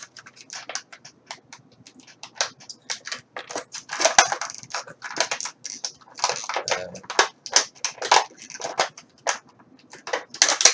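Clear plastic packaging crinkling and crackling in the hands as an action figure's blister tray and plastic bag are handled, a quick irregular run of crackles and clicks.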